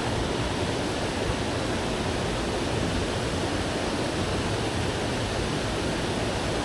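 Mountain stream water rushing steadily over rocks, a constant even wash of noise.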